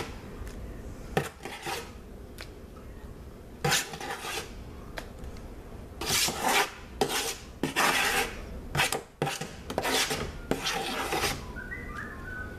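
A spoon scraping thick soap out of an Oster electric roaster's pan, in irregular scrapes of varying length with quieter gaps between.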